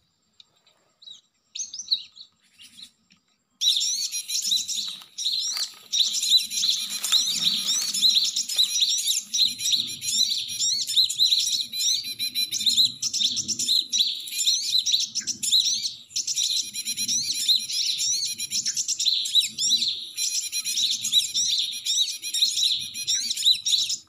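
A lure recording of bird calls played through a small speaker, switched on abruptly about three and a half seconds in: a loud, dense, unbroken stream of high chirps and twitters.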